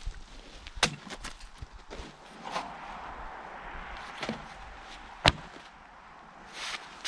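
A few scattered sharp knocks and clunks, the loudest a single sharp knock about five seconds in, with no saw or engine running.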